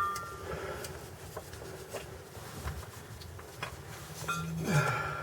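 Faint scattered clicks and light knocks of hand tools and parts being handled while a clutch slave cylinder is worked into place. A brief voice-like sound with a falling pitch about four and a half seconds in is the loudest part.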